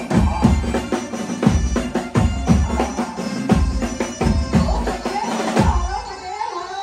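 Live band playing garba dance music: a heavy drum beat on a steady, even rhythm with quicker percussion between the beats. The beat breaks off near the end, leaving a brief gliding melodic line.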